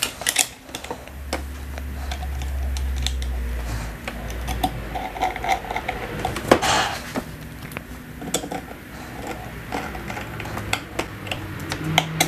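Small clicks and taps as a 3D-printed plastic template following guide is seated in a Festool OF1010 router's base plate and screwed down with a screwdriver. A low hum sounds for about three seconds near the start.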